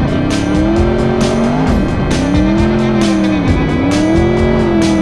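Off-road race car engine heard from inside the cockpit, its revs rising and falling three times as the throttle is worked on sand. A steady music beat runs underneath.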